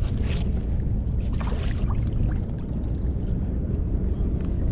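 Wind buffeting the microphone: a steady low rumble, with a few faint light knocks or splashes above it.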